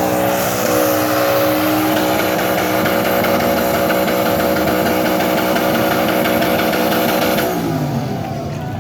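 Race car engine held at steady high revs, with the revs falling away near the end.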